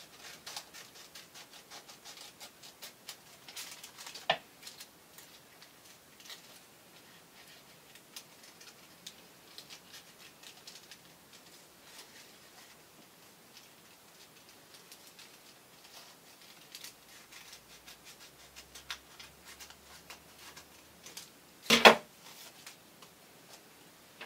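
Scissors snipping through thin red card and greaseproof paper in a run of small crisp cuts, with a sharp click about four seconds in and a louder clatter near the end.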